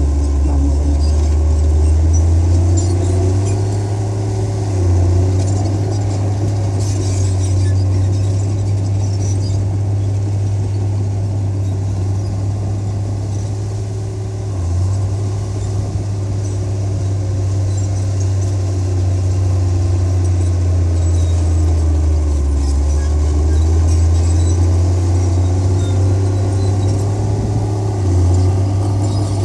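Heavy diesel earthmoving machinery running: a strong low engine drone that rises and falls in pitch as the load changes, with faint high squeaks scattered through it.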